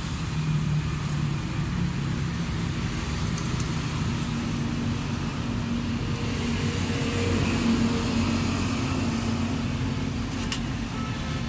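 A motor vehicle's engine running steadily, its pitch rising a little midway, with a sharp click near the end.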